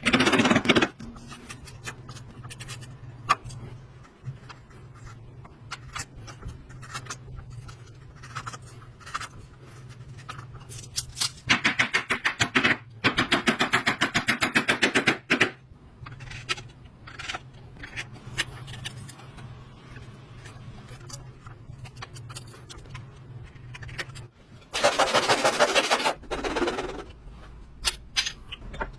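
Woodworking tool noise: three loud bursts of fast, rapidly repeated strokes on wood, the longest several seconds long. Scattered knocks and clicks fall between them over a steady low hum.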